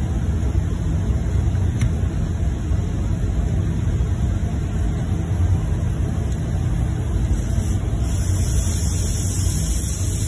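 A vehicle running, heard as a steady low rumble; a high hiss comes up about eight seconds in.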